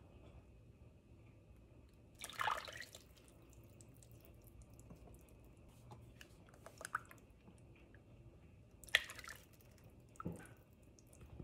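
Heavy whipping cream being poured from a carton into a plastic measuring cup and tipped into a slow cooker: a few short pours and splashes, the loudest about two seconds in.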